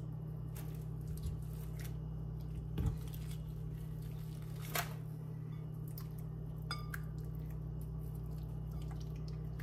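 Raw chicken thighs being turned in a wet balsamic marinade with a fork, giving soft squishes and a few light clicks of the fork against the glass bowl, over a steady low hum.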